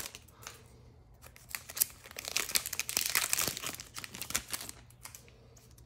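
A trading-card pack's wrapper being torn open and crinkled, in a run of irregular crackling bursts through the middle few seconds.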